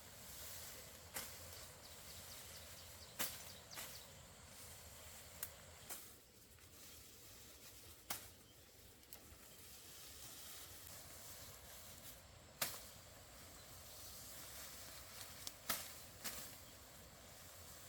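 Faint outdoor background hiss, broken by about ten short, sharp clicks or knocks at irregular intervals.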